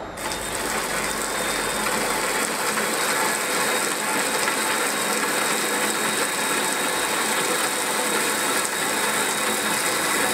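Cordless drill driving a Malt Muncher grain mill, its rollers crushing grain as the hopper empties. A steady grinding noise that gets louder just after the start, then holds even.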